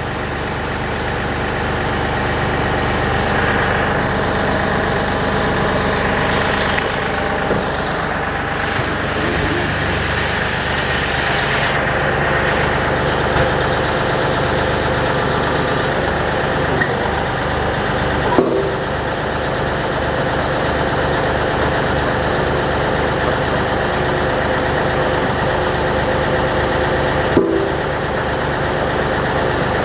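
Kioti DK series tractor's diesel engine running steadily while the tractor pulls forward low and slow to slide the backhoe subframe off. There are two short knocks, one about halfway through and one near the end.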